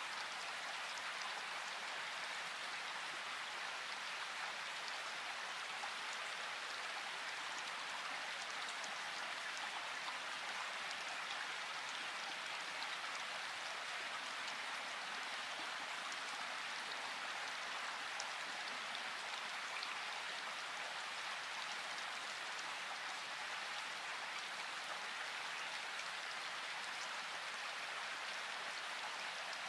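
Steady, even rain-like hiss with faint scattered ticks, unchanging throughout.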